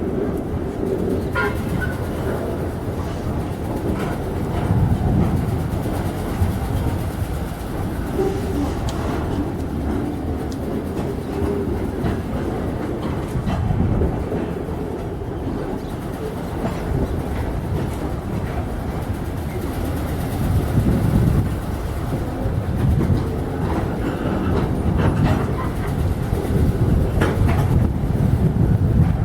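Train wagons rolling past on the rails, with a continuous low rumble that swells and fades every few seconds and a little clatter from the wheels.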